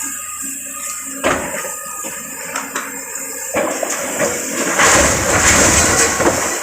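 A building wall collapsing during demolition: a few crunching knocks, then from about three and a half seconds a growing rush and crash of falling masonry and debris, loudest near the end, heavy enough to shake the ground.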